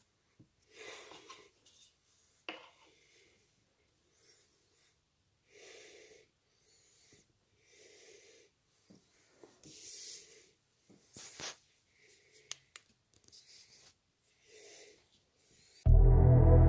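Soft breaths close to the microphone, one every second or two, with a few sharp handling clicks. Near the end, ambient electronic music starts abruptly and is the loudest sound.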